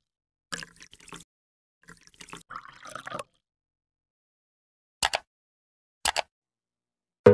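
Water-drip sound effects, a string of small irregular drips and splashes for about three seconds. After a pause come two short click sound effects about a second apart.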